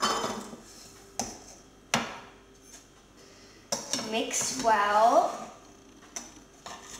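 Metal spoon clinking against a glass jug, a few sharp taps, as sugar is spooned into custard powder and water. From about halfway, a second and a half of squeaky scraping as the spoon is stirred around the glass, then a couple more light clinks near the end.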